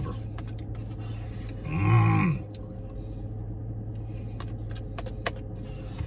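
Steady low hum inside a parked car's cabin, with one short, low vocal sound from the man eating about two seconds in, the loudest thing heard. A few light clicks of a plastic spoon against the Blizzard cup follow later.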